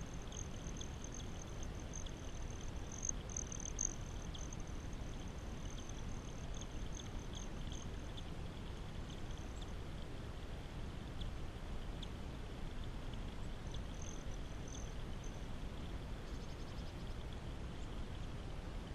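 Small stream of water trickling and splashing over stones into a rock-lined pool, a steady even sound. A thin high whine rises and fades through it, with faint light ticks.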